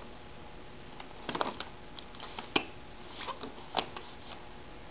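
Disposable examination gloves being pulled on by hand: faint rustling with a few sharp little snaps, two of them about a second apart near the middle.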